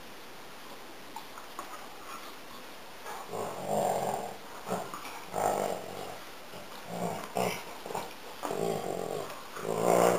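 Two black dogs play-fighting, giving a run of short, rough play-growls that start about three seconds in and grow loudest near the end.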